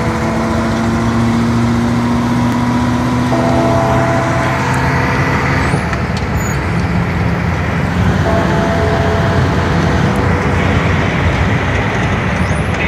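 Cab interior sound of a Scania 143 truck's V8 diesel engine pulling on the road, with steady tyre and road rumble. The engine note changes about six seconds in as the truck overtakes.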